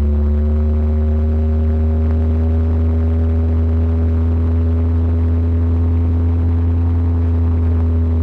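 Ford 351 Windsor V8 running at a steady cruise: a loud, low, even drone with a humming tone over it that creeps up slightly in pitch.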